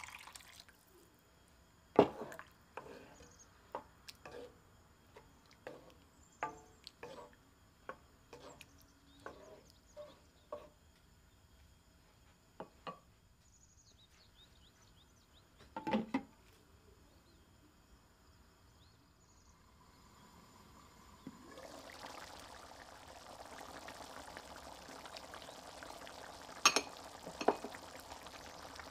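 Water poured into a pan of chickpea and tomato sauce, followed by scattered pops and drips for about the next ten seconds. From about two-thirds of the way through, the sauce simmers with a steady bubbling hiss that slowly grows. A couple of sharp knocks near the end come from the wooden spoon against the stainless steel pan.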